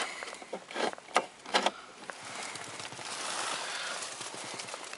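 Plastic dashboard air vent of a 2011 Lifan Breez being adjusted by hand: four or five short clicks of the louvers in the first two seconds, followed by a soft steady hiss.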